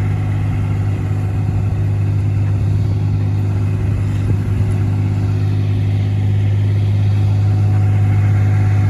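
Engine running steadily at a constant speed, a loud, even drone, from the crack-filling equipment at work.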